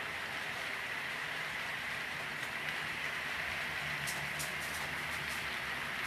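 Model train running past on the layout: a steady rolling rattle and motor hum of diesel locomotives and tank cars on the track, with a few sharp clicks of wheels over rail joints about four seconds in.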